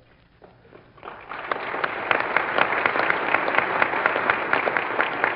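Dinner audience applauding: a short hush, then many hands clapping from about a second in, heard on an old radio broadcast recording.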